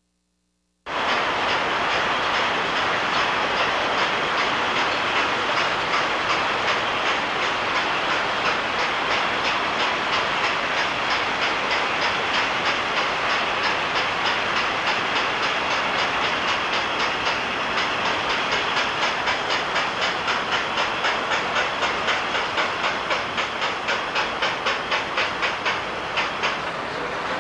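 Steam locomotive sound: a steady hiss with an even chuff of about four beats a second, which grows more distinct toward the end.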